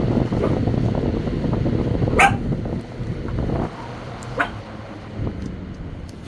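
Dogs barking: two sharp barks, the louder about two seconds in and another at about four and a half seconds, over a dense low noise that drops away after about three and a half seconds.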